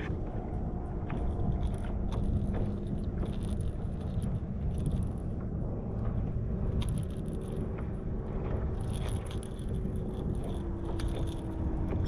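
A boat motor hums steadily under wind noise. Light clicks and rattles come and go over it.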